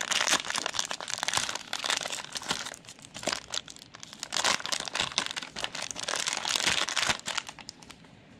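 Plastic cellophane wrapper of a Panini Mosaic basketball-card cello pack crinkling and crackling as it is torn open, in uneven bursts that quieten near the end.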